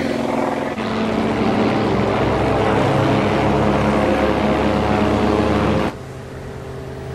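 Propeller aircraft's piston engine running loud and steady at close range. Near the end the sound drops suddenly to a fainter, steady engine hum.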